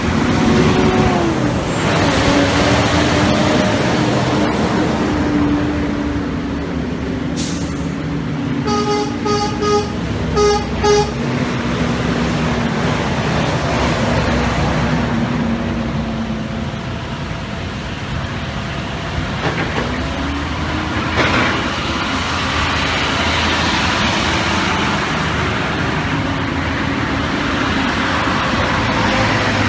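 Heavy diesel trucks, dump trucks and a semi tractor hauling a lowboy trailer, driving past one after another, their engines rising and falling as each goes by. About nine seconds in, a truck horn gives a string of about six short toots, and short air-brake hisses sound now and then.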